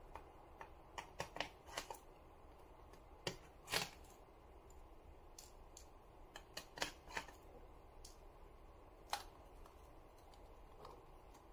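Faint, scattered clicks and light taps of a precision screwdriver and tiny screws being worked out of a small circuit board in the GPD Duo's chassis. The loudest tap comes about four seconds in, and a few quick ones come around seven seconds.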